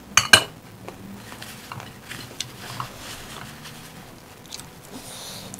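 Two sharp clicks a quarter-second in as a stemmed glass is set down, then close-up eating sounds: chewing, lip smacks and the wet squish of rice and gravy mixed by hand.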